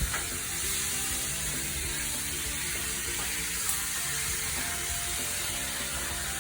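Cut-up chicken sizzling as it fries in olive oil in a pan, a steady hiss, with background music playing over it.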